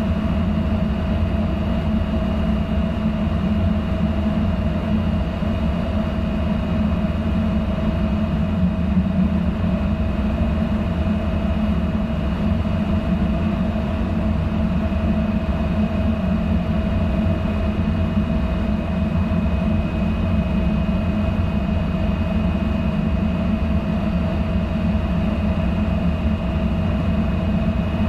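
Steady low drone of the diesel machinery on a passing tug-pushed cement barge, with an even hum and a faint high whine over it.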